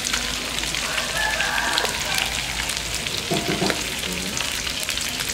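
Duck pieces sizzling in a hot steel wok, with a metal ladle clinking and scraping against the pan.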